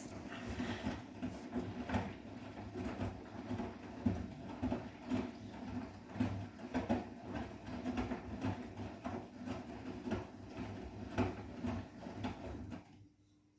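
Bosch WGA25202TR front-loading washing machine mid-wash: the drum turns with a low motor hum while the wet laundry tumbles and knocks irregularly, then the drum stops suddenly near the end.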